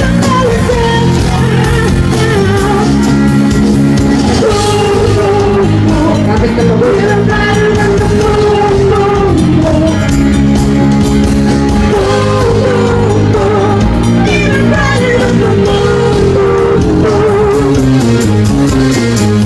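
Music: a song with a singing voice holding long, gliding notes over a steady instrumental backing.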